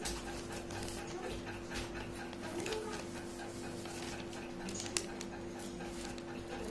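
Paper rustling and crinkling as hands handle sheets of lined notebook paper, with a sharp tap about five seconds in, over a steady low hum.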